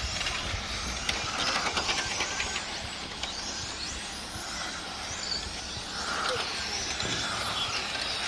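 A pack of 1/10 electric touring cars with 17.5-turn brushless motors running laps, their motor whine rising and falling in pitch as they accelerate and brake, over a steady hiss.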